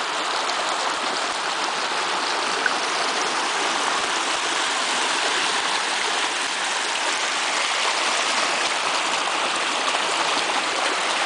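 Small rocky woodland stream rushing and splashing over stones: a steady noise of running water.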